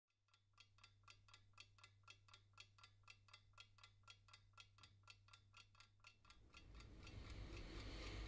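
Faint, quick ticking of a clock, about five ticks a second, over a low steady hum. From about six seconds in, a rising swell of noise builds over it.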